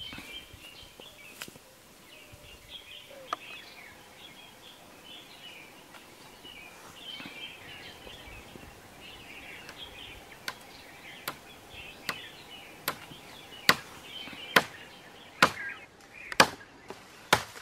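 Blade chopping into wood: sharp single strokes, a little over one a second, begin about halfway through and grow louder. Faint chirping runs underneath.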